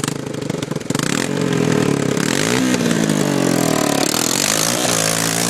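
ATV engine running, pulsing unevenly at first, then revved up and down several times, its pitch climbing and falling.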